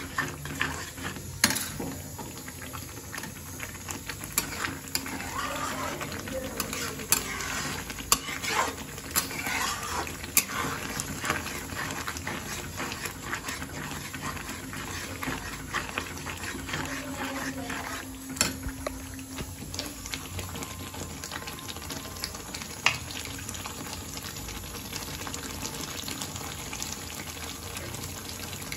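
Thick spinach puree bubbling in an iron kadai while a spatula stirs it, with many scattered sharp pops and clicks over a steady bubbling hiss.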